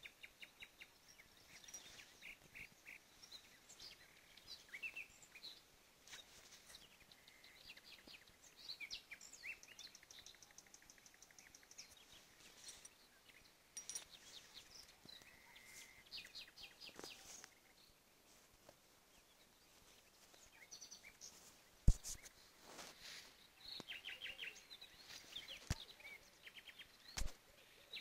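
Faint chorus of short repeated chirps and trills from small night animals, with two sharp clicks in the second half, the first the loudest sound.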